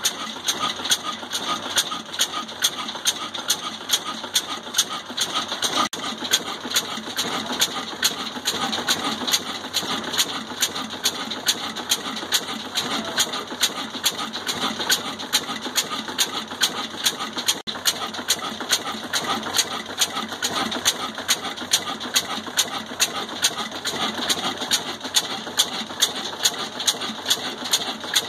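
Old Ruston Hornsby stationary diesel engine running steadily while driving a chakki flour mill, with a sharp regular click between two and three times a second over its running.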